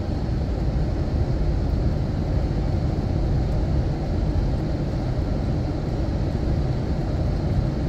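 Steady road and engine noise of a truck cruising at highway speed, heard from inside the cab.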